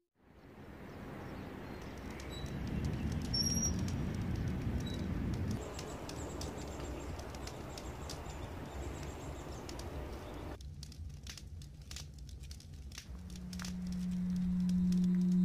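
Outdoor background noise, a steady hiss with a few faint bird chirps and light clicks, which cuts off suddenly about ten seconds in. A low sustained music tone then swells in near the end.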